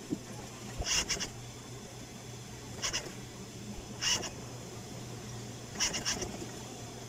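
Steady low hum of an industrial sewing machine's motor running, with short high-pitched chirps or squeaks four times, two of them doubled.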